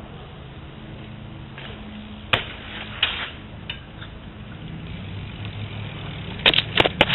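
BMX riding sounds: a steady low rumble, a sharp impact about two and a half seconds in, and a quick run of knocks and clatters near the end.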